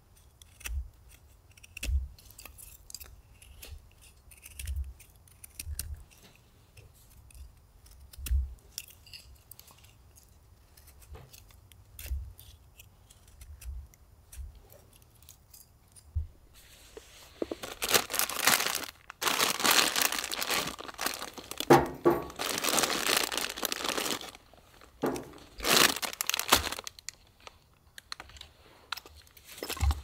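Packaging being handled, then torn open and crumpled. Scattered light clicks and knocks for the first half, then a dense stretch of loud tearing and crinkling.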